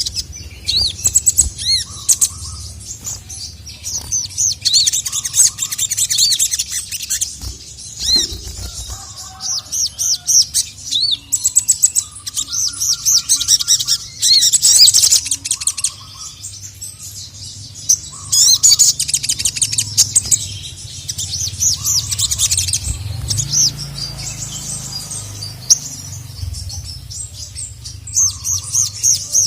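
Sogon (little spiderhunter) singing: rapid runs of short, high chirping notes in bursts of a few seconds, with brief pauses between them.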